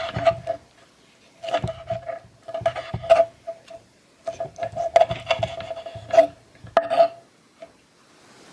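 A cooking utensil scraping and knocking against a metal pan in five irregular bursts, each with the same ringing tone from the pan, with short pauses between them.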